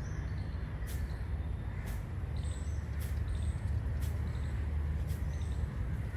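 Faint bird chirps over a steady low rumble, with soft high ticks about once a second.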